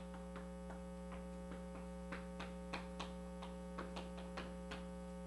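Chalk tapping and clicking on a chalkboard as a formula is written, a string of short irregular taps about three or four a second, over a steady electrical hum.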